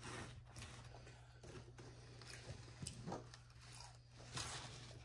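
Faint sounds of crispy fried chicken being bitten and chewed close to the microphone: soft, scattered crunches over a low steady hum.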